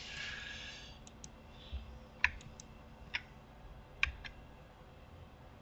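Scattered sharp clicks from working a computer's mouse and keys, about eight over a few seconds, some in quick pairs, after a short soft hiss at the start.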